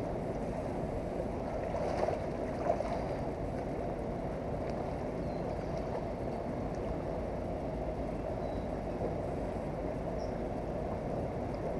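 Steady rush of fast-flowing river water running along the bank.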